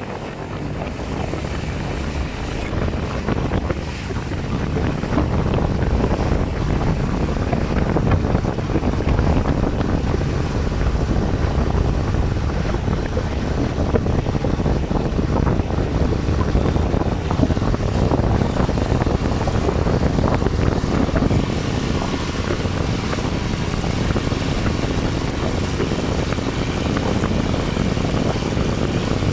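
Motorboat engine running steadily under way across open sea, with wind buffeting the microphone and water rushing past the hull; it grows a little louder over the first few seconds, then holds steady.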